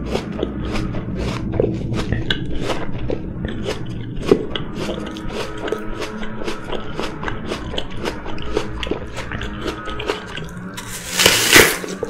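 Raw apple chewed close to the microphone: a steady run of wet, crisp crunching, then a loud crunching bite into the apple near the end.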